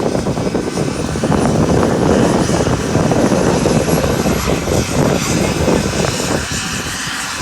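Doctor helicopter running close by, its rotor and turbine noise mixed with heavy wind buffeting on the microphone, with a thin high whine that slowly rises.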